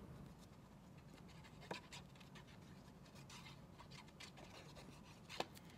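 Faint scratching of a liquid glue bottle's applicator tip rubbed across cardstock, with a few soft paper taps.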